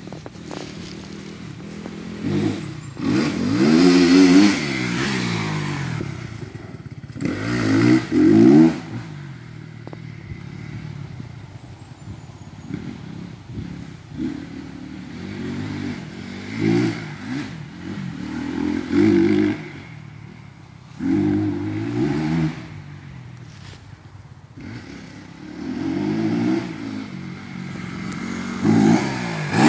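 Dirt bike engine revving hard and easing off as it rides past several times on a dirt track. The engine note rises and falls with each burst of throttle and is loudest as the bike goes by.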